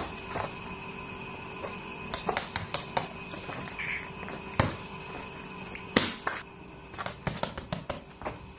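Kicks and punches landing on a hanging heavy bag: sharp slaps and thuds at an irregular pace, a hard hit at the very start, a quick cluster about two to three seconds in, single heavy hits near four and a half and six seconds, then a rapid flurry of lighter strikes. Faint steady tones hum underneath.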